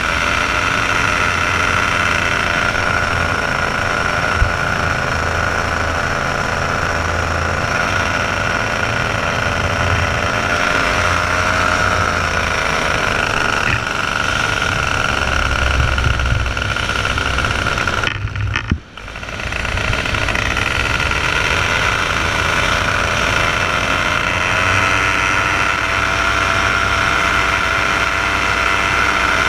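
Paramotor engine and propeller running steadily in flight, a constant drone with a strong high-pitched tone. The sound cuts out for under a second about two-thirds of the way through, then returns unchanged.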